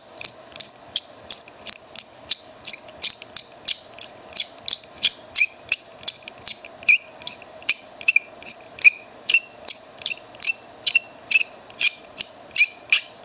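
Hand pin vise with a 1/16-inch bit drilling into a plastic miniature: a regular scratchy squeak about three times a second as the bit is twisted into the plastic, over a faint steady hum.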